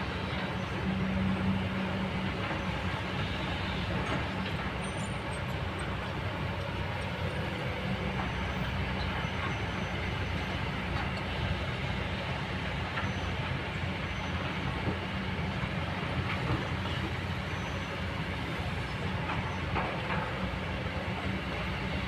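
Kobelco hydraulic excavator's diesel engine running steadily as the boom and bucket work, a constant low hum.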